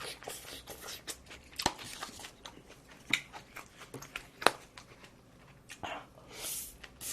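Close-up eating sounds: chewing with scattered sharp clicks and taps, and a brief hiss about six and a half seconds in.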